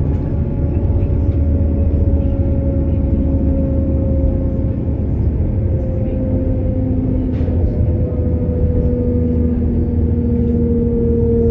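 Inside a Class 195 CAF Civity diesel multiple unit on the move: a steady low rumble from the running gear and underfloor engine, with an engine-and-gearbox whine that slowly falls in pitch.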